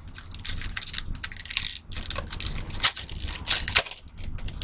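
Foil trading-card pack wrapper crinkling and being torn open by hand, in a quick run of crackly rustles with a couple of brief pauses.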